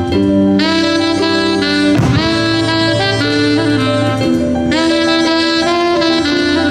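Live jazz, with a saxophone playing a melody of held notes over a walking bass and drums. There is one sharp bang about two seconds in.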